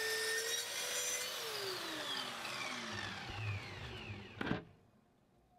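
Lidl Parkside plunge saw's 1200 W brushed motor running with a steady whine, then switched off about a second in and spinning down, its whine falling steadily in pitch. A single knock comes near the end, after which the sound cuts off suddenly.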